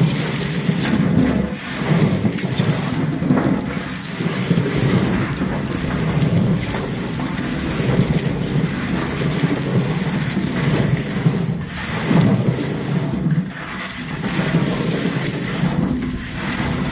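Tulip and day lily bulbs being mixed by hand in a 5-gallon pail, a continuous tumbling rustle that swells and eases every second or two.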